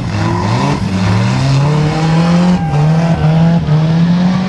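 Engine of a 2-litre rear-wheel-drive banger race car revving up over the first second or so and then held at high revs, with its rear wheels spinning and smoking on the track.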